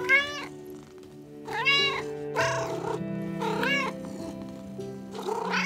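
A cat meowing again and again, about five short meows, each rising and then falling in pitch, over soft background music with long held notes.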